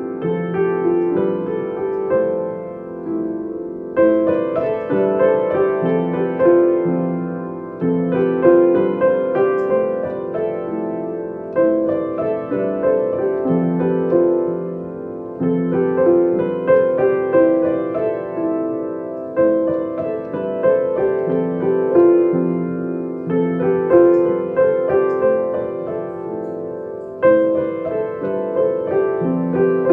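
Gentle piano music, a slow melody over low notes, with a new phrase struck about every four seconds.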